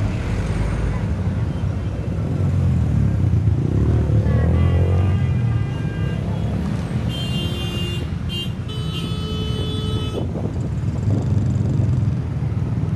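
Jammed road traffic: engines running steadily with car horns honking over them, a fainter honk about halfway through, then a short honk and two longer ones, the loudest, between about seven and ten seconds in.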